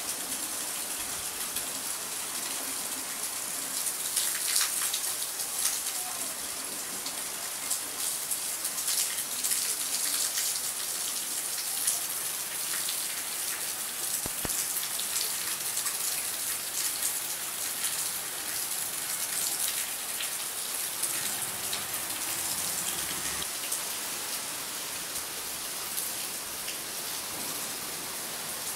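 Rain falling steadily: a dense, even hiss with many sharp drop taps mixed in.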